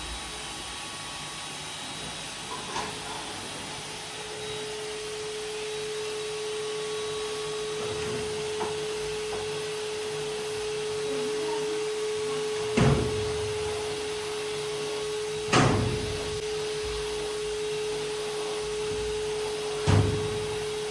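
A steady hiss with a steady humming tone that comes in a few seconds in, and three sharp knocks, the last two about five seconds apart.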